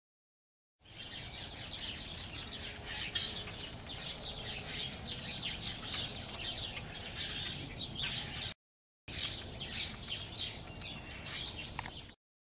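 Many small birds chirping and twittering at once, a dense chorus of short calls over a low background rumble. It breaks off for about half a second around eight and a half seconds in, resumes, and cuts off suddenly near the end.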